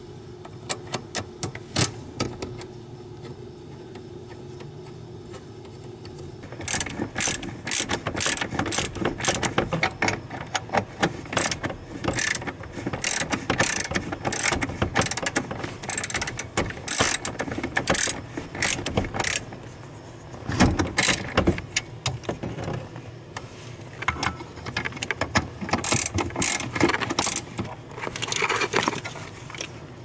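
Socket ratchet wrench clicking in quick runs with short pauses, fastening the steering shaft U-joint to the steering column shaft. A few scattered clicks at first, then steady ratcheting from about six seconds in.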